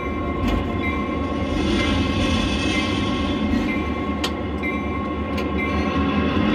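Diesel locomotive running sound for the HO scale train being driven from the cab: a steady low engine rumble with a few sharp clicks scattered through it.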